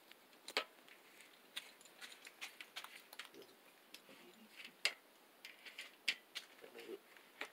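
Irregular light metal clicks and taps of a wrench and bike parts as a bicycle front wheel is fitted into the fork, with two sharper clicks about five and six seconds in.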